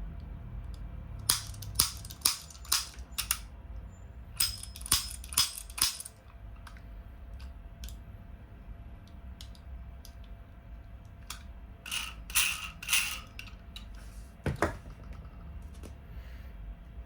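Toy revolver clicking in quick runs of about five sharp snaps, then a short cluster and one last single click near the end.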